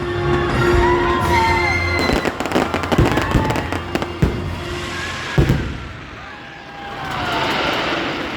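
Fireworks going off as a string of sharp bangs and crackles, the loudest about five and a half seconds in, over the show's music.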